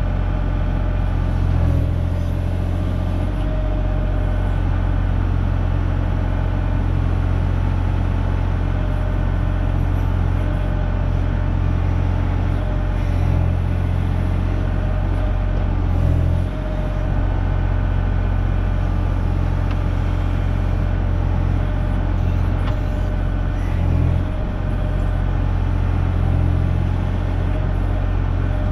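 Kubota KX040 mini excavator's diesel engine running steadily while its bucket digs into the soil. The engine note swells briefly a few times as the arm works.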